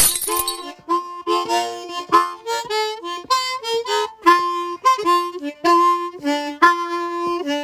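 Harmonica playing a run of quick, changing notes and two-note chords.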